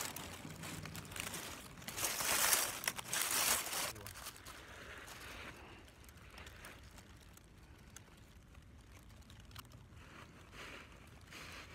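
Dry leaves crackling and rustling right against the microphone as someone shifts while buried in a leaf pile. It is loudest about two to four seconds in, then fades to faint, scattered crackles.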